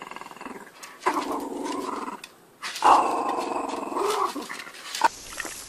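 Small dog growling in play while tugging a rubber ring toy: three long growls with short breaks between them, the loudest about three seconds in, stopping about five seconds in.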